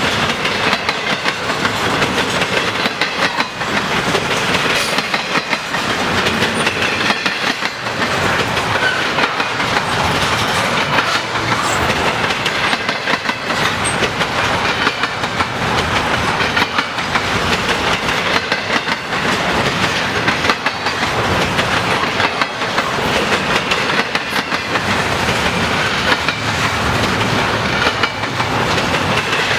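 Freight train cars of a long intermodal train rolling past, with steel wheels clicking and rumbling over the rails in a steady, continuous noise.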